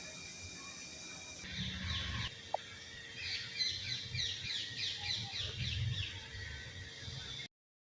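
Birds chirping: a quick series of short, high, falling chirps about three seconds in. A faint steady hum comes before it, and the sound cuts out just before the end.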